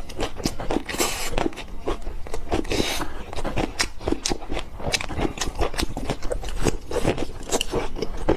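Close-miked eating sounds of spicy noodles: quick, repeated chewing. There are two longer slurps, about a second in and about three seconds in.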